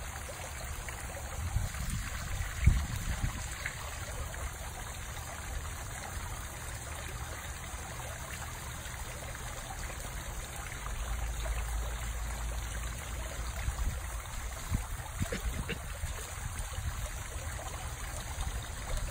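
Steady hissing outdoor background noise with a low rumble that swells in the middle, and a few faint knocks, one a few seconds in and a couple more past the middle.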